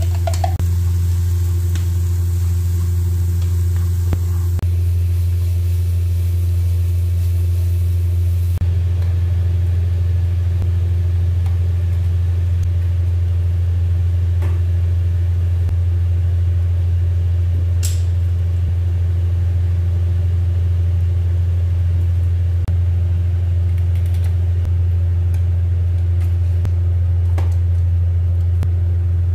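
A steady, loud low hum, unchanging throughout, with a few faint clicks.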